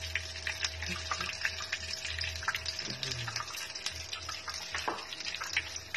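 Breaded eggplant and tuna patties sizzling in hot oil in a small pan, with many small irregular crackles over a steady low hum.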